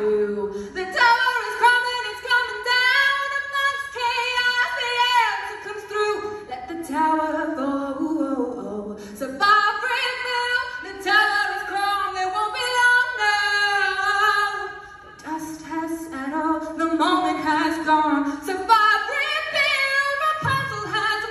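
A woman singing solo without accompaniment into a microphone: a slow, melodic live vocal line sung in phrases with short breaths between them.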